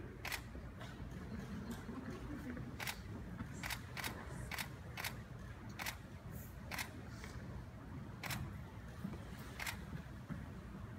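Camera shutters clicking, about a dozen single faint clicks at irregular intervals, over a low room hum.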